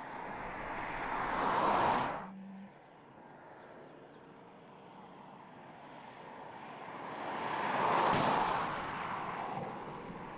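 Subaru Forester SUV driving past on an asphalt road, its tyre and engine noise swelling and fading twice. The first pass is cut off abruptly about 2 seconds in. The second peaks about 8 seconds in and then dies away as the car drives off.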